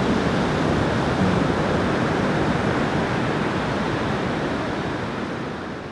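Steady wash of ocean surf, fading out near the end.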